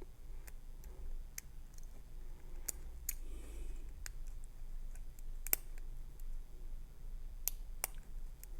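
Small metallic clicks and ticks of a lock pick working the pins of a CLL rim cylinder held in a false set, scattered irregularly, the sharpest about five and a half seconds in.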